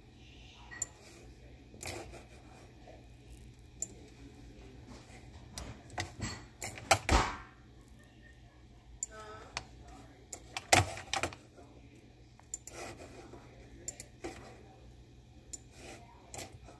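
Irregular sharp clicks and knocks from a computer mouse being clicked and moved while drawing, with the loudest pair about seven and eleven seconds in, over a steady low hum.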